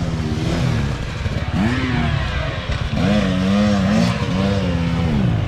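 Dirt bike engine revving on the throttle, its pitch rising and falling over and over as the bike is worked over rough trail.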